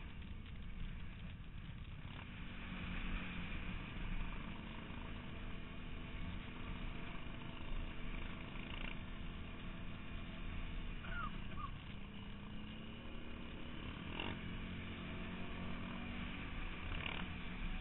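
Quad bike (ATV) engine running steadily as it is ridden along a snowy track. Its note drops briefly about twelve seconds in, then picks up again, with two faint knocks near the end.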